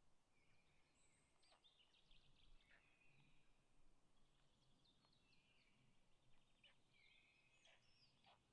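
Faint wild songbirds chirping and trilling in the forest, with repeated short calls and a few brief clicks.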